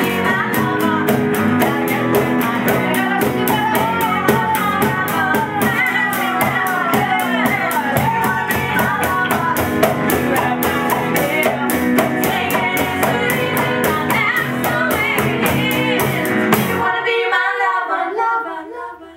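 Live pop-rock band playing with vocals, guitar and a steady cymbal beat, stopping abruptly near the end.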